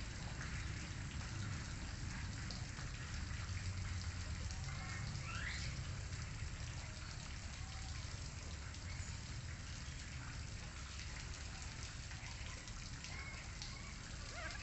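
Steady background hiss with a low rumble underneath, like rain or outdoor ambience, and a few faint short rising chirps around the middle.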